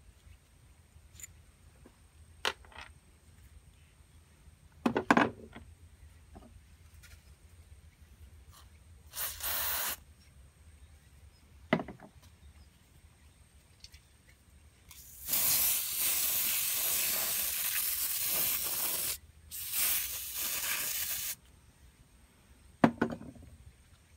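Aerosol spray hissing in bursts: a short one about nine seconds in, then a long spray of about four seconds followed by another of about two seconds. A few sharp knocks come in between, the loudest about five seconds in.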